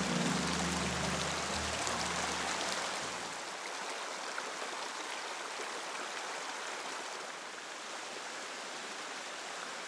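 Snowmelt mountain stream rushing and splashing over rocks, a steady dense rush of water. Low music notes sound under it at first and end about three seconds in.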